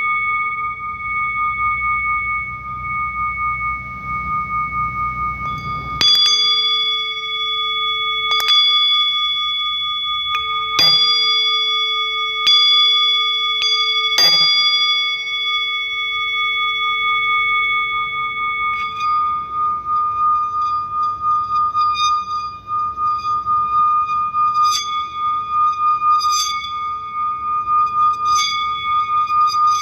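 Singing bowls ringing with a steady, sustained tone. Five struck tones ring out between about six and fourteen seconds in. From about two-thirds through comes a run of lighter, higher-pitched bell strikes, one every second and a half or so.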